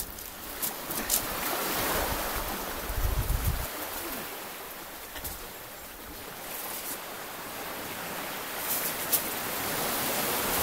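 Sea waves washing on a rocky shore, a steady rush that swells and eases. A few light clicks, and a brief low rumble of wind on the microphone about three seconds in.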